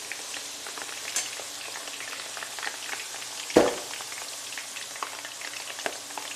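Thin potato slices deep-frying in hot oil: a steady sizzle full of small crackles and pops, with one sharp, louder knock about three and a half seconds in.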